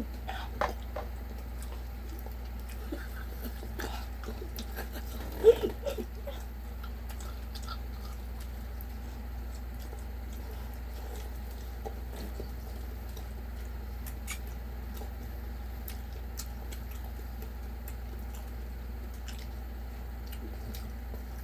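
A person chewing and eating with scattered soft clicks and taps, over a steady low hum. One short, louder sound comes about five seconds in.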